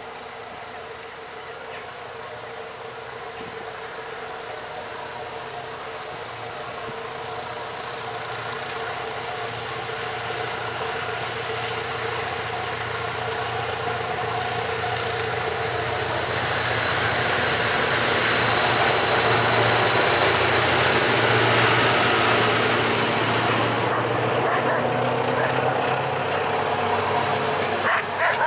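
SU42 diesel locomotive running as it hauls a train of double-deck passenger coaches past, its engine growing steadily louder as it approaches and loudest as it goes by, then the rumble of the coaches' wheels on the rails. A steady high tone fades out about two-thirds of the way through.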